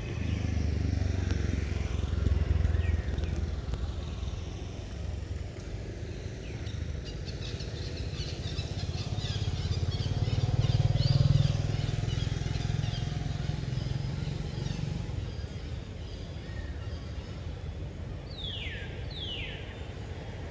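Low rumble of motor traffic passing at a distance, swelling twice and fading. Near the end come two short, high calls that fall in pitch.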